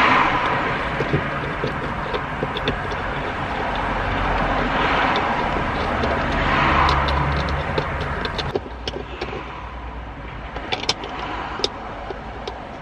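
Road traffic going by: car engines humming and tyre noise that swell twice around the middle, then die down. Small sharp clicks and taps of a hand screwdriver driving screws into the console well nuts come through over the last few seconds.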